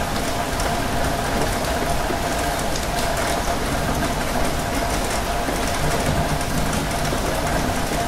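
Steady rain falling: an even, unbroken hiss with scattered faint ticks of drops and a faint steady tone underneath.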